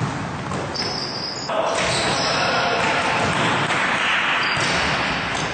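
Basketball practice in a reverberant gym: balls bouncing on the hard court and sneakers squeaking briefly a few times, over a steady noisy din from the hall.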